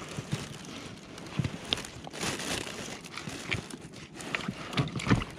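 Small irregular clicks, knocks and rustles of hands handling fishing line and tackle, with a few sharp ticks, over soft fabric rustle and light background hiss.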